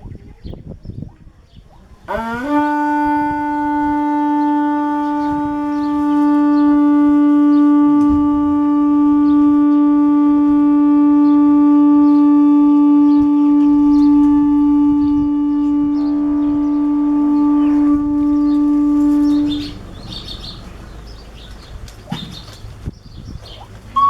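Pututo (conch-shell trumpet) blown in one long steady note, scooping up in pitch at the start, held for about seventeen seconds, then stopping. The call announces worship of the gods and summons people to gather in reverence.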